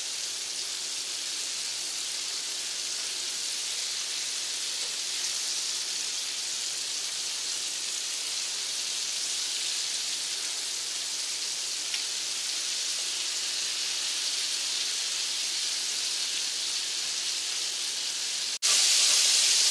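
Chicken wings and tenders frying in hot fat in a cast-iron skillet: a steady, even sizzle. Near the end it breaks off for an instant and comes back louder.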